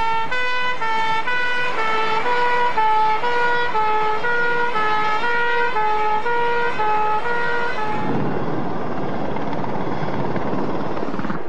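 Fire engine's two-tone siren sounding, alternating rapidly between a high and a low note; about eight seconds in it stops and a dense rushing noise takes over.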